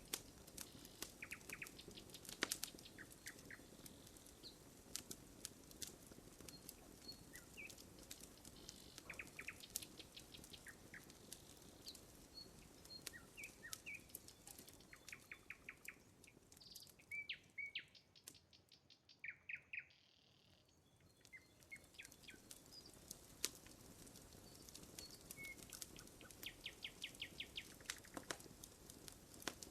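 Faint campfire crackling with scattered sharp pops, and small birds chirping in the background, with quick chirping trills around the middle and again near the end.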